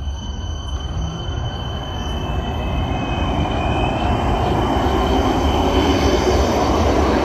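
Regional electric multiple unit running past close by, its noise growing steadily louder. A whine rises in pitch over the first few seconds as the train gathers speed, with thin high steady tones above it.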